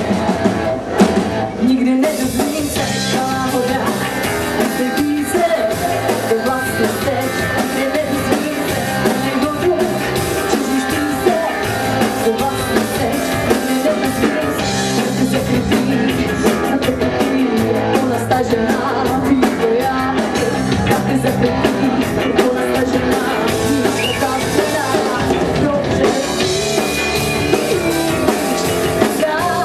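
Live rock band playing: a woman singing over electric guitar, bass guitar and a drum kit.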